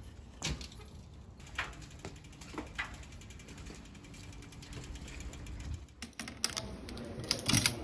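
Bicycle freewheel ticking rapidly as the bike is wheeled along, after a sharp click about half a second in. A few louder clicks come near the end.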